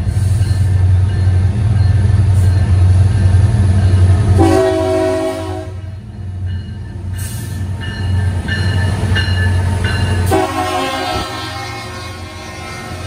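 Diesel freight locomotives rumbling as they approach and pass close by, with the lead locomotive's air horn sounding a chord twice: a blast of about a second and a half starting about four seconds in, and a longer one starting about ten seconds in that fades away.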